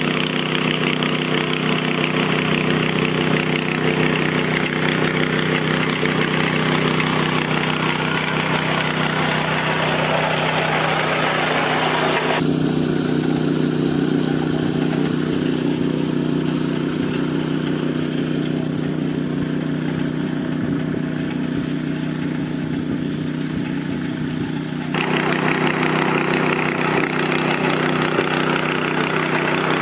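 A machine's engine running steadily at a constant speed. The sound changes abruptly about twelve seconds in and again about twenty-five seconds in.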